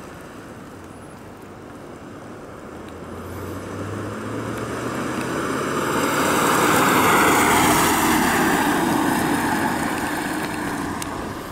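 1969 Chevrolet Corvette's 350 cubic-inch V8 running as the car drives up and passes by. It grows louder to a peak about seven seconds in, then fades as the car pulls away.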